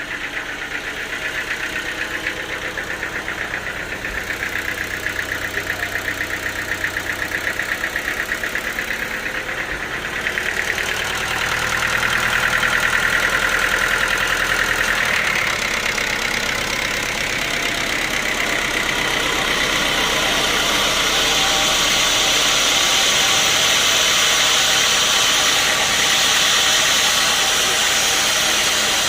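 Engine-driven sawmill machinery running steadily with a fast, even knocking pulse. It grows louder about ten seconds in, and a higher hiss builds up from around twenty seconds on.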